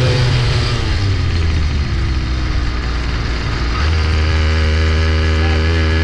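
Small single-cylinder bike engine on a ride: the revs fall off as the throttle is let off, then pick up again about four seconds in and hold steady.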